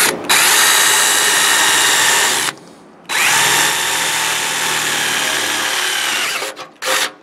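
Craftsman cordless drill with a twist bit boring through the tractor's painted sheet-steel fender: a couple of quick trigger blips, a long run, a brief stop about two and a half seconds in, then a second long run and a few short bursts near the end.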